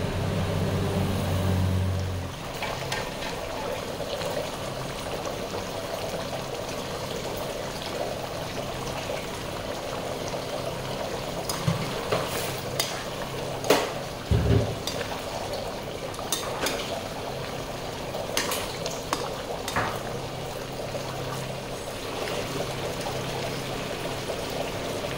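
Thick butter-chicken gravy simmering and bubbling in a steel kadai, stirred with a metal ladle that clinks and knocks against the pan several times in the second half. A low hum stops about two seconds in.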